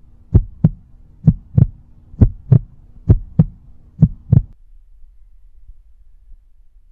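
Heartbeat sound effect: five pairs of low lub-dub thumps, about one pair a second, over a faint steady hum, stopping about four and a half seconds in.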